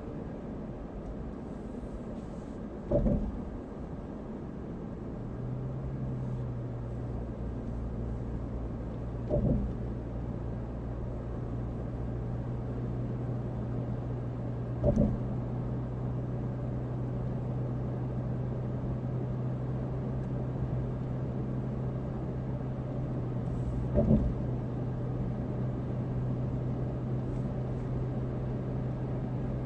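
Road noise of a car driving at highway speed, heard from inside the cabin, with a steady low hum that sets in a few seconds in. Four short thumps stand out, several seconds apart.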